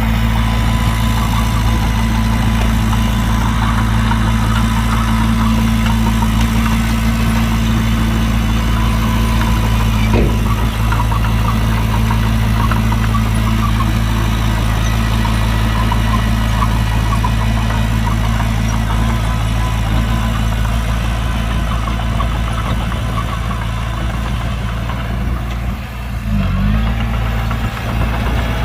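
Heavy diesel engine idling steadily, with a brief dip and wobble in its pitch near the end.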